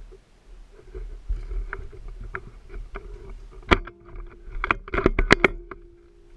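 Airsoft player moving through dry grass with a rifle and gear: rustling and handling noise with small clicks, then a sharp loud click a little before four seconds in and a quick run of sharp clicks and knocks about a second later.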